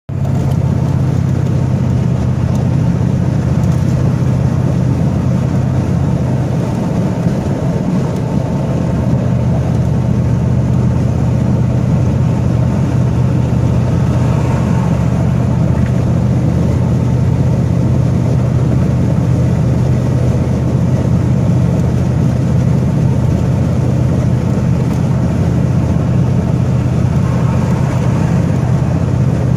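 A car driving along steadily: a constant low engine and road drone with tyre noise, cutting in suddenly at the start.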